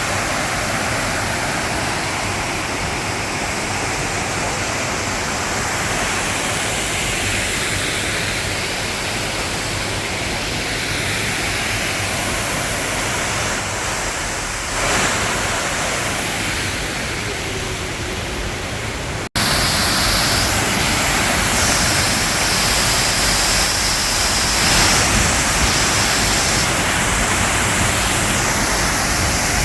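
Waterfall: a steady, loud rush of falling water. It breaks off abruptly about two-thirds of the way through and comes back louder and hissier.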